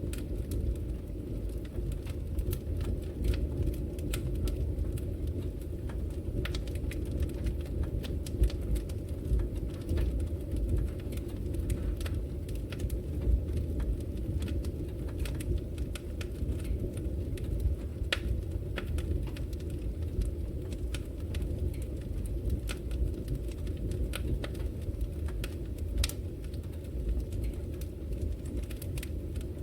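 Fire crackling in a fireplace: irregular sharp pops and snaps scattered over a steady low rumble of burning.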